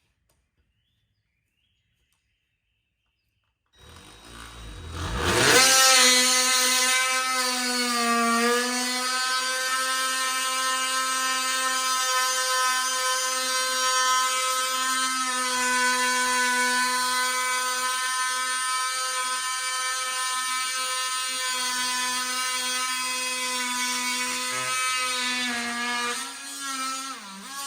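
A power tool's motor starts about four seconds in, spins up to a steady high whine and runs for about twenty seconds, its pitch dipping briefly soon after starting and wavering before it stops near the end.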